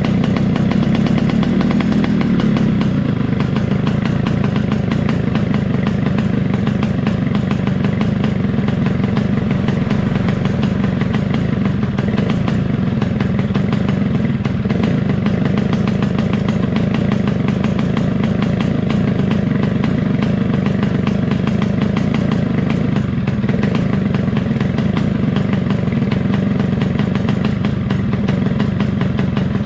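Yamaha RX-King's single-cylinder two-stroke engine running steadily at an even speed, with no rise or fall in revs.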